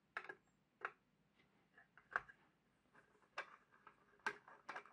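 Faint, scattered clicks and taps, about six, from a screwdriver working the large screw out of the top of a Hornby Dublo Class 20 model locomotive as the body is handled.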